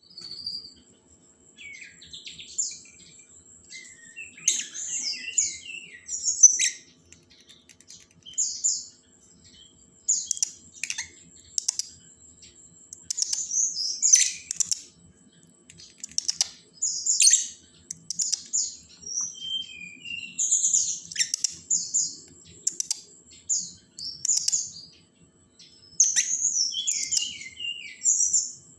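Lovebird chattering: bursts of shrill chirps mixed with sharp clicks, about a second long each with short pauses between.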